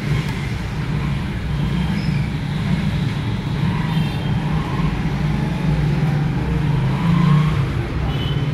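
A steady low rumble of a running engine.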